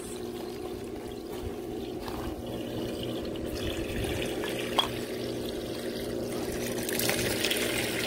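Kuppet portable washing machine's drain pump running with a steady hum while waste wash water pours from its corrugated drain hose into a sewer pipe opening. It pumps out at a pretty good pace.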